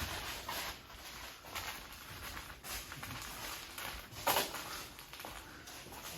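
Footsteps of a person walking on the ship's deck: soft steps about a second apart, with one louder knock a little past four seconds in.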